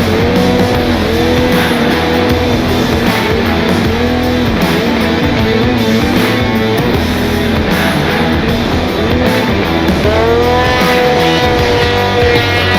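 Rock music with guitar over a snowmobile engine revving, its pitch rising and falling repeatedly, with a long climb near the end.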